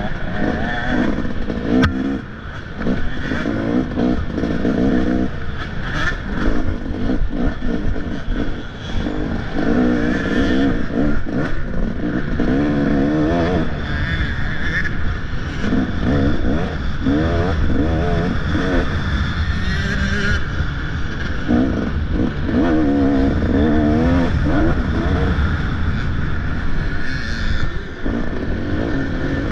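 Motocross bike engine revving up and down again and again through the course, over rattling and knocks from the bike.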